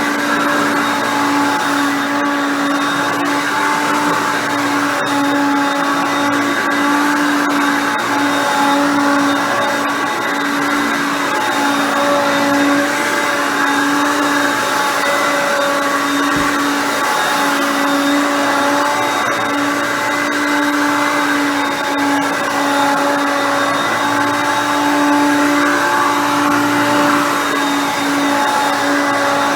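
Hoover Concept Two upright vacuum cleaner, with a 5.6 amp motor, running steadily with an even motor whine over airflow hiss.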